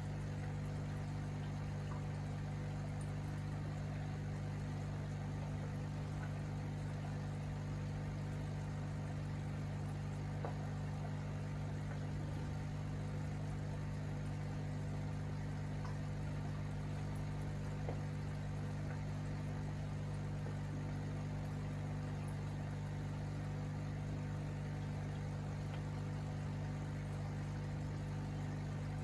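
Aquarium equipment running: a steady low hum with a faint trickle of bubbling water.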